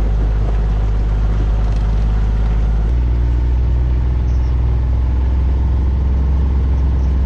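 A small vehicle's engine running steadily, its note shifting about three seconds in.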